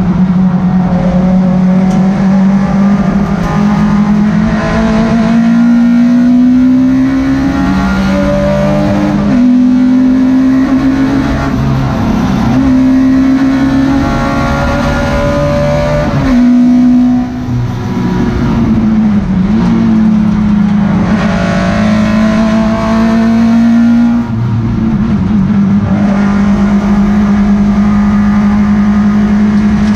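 Citroen Saxo race car's 1.4-litre four-cylinder engine heard from inside the stripped cabin, running loud under racing load, its pitch climbing and dropping again and again. There is a short dip in level about 17 seconds in.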